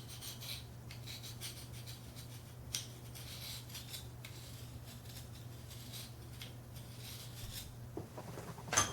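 Steel knife edge being deliberately dulled, scraped in repeated faint, irregular strokes against a hard surface, over a low steady hum.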